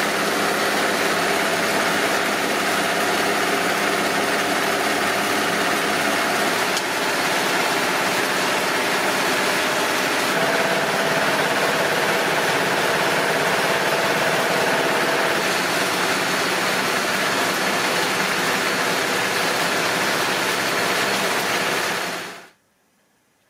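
UGT-10 multi-purpose crop thresher driven by its diesel engine, running steadily while threshing and cleaning quinoa. The sound cuts off sharply near the end.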